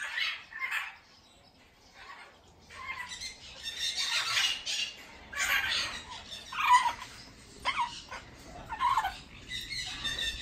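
Parrots squawking: a string of harsh, screechy calls, with a short lull about a second in.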